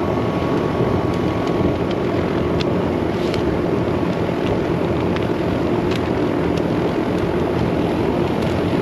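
Air-conditioner condensing unit running steadily, its condenser fan and compressor making a constant whooshing hum, back in operation on a newly replaced capacitor.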